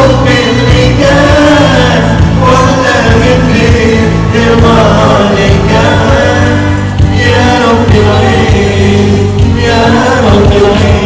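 Loud music with singing over sustained low notes.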